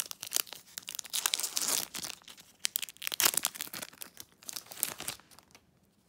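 Pokémon TCG booster pack's foil wrapper being torn open and crinkled: a run of sharp crackling tears and rustles that die down near the end.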